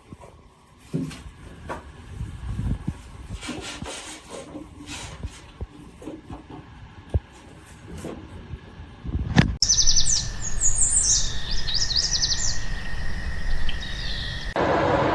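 A bird chirping in quick runs of high notes for several seconds, coming in about ten seconds in after scattered knocks and rustling with one loud thump.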